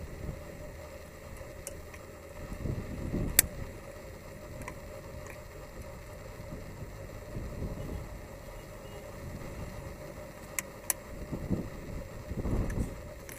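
A few sharp plastic clicks as the injector wiring harness and its connectors are unclipped from the fuel rail by hand: one loud click about three seconds in and two close together near the end, over an intermittent low rumble.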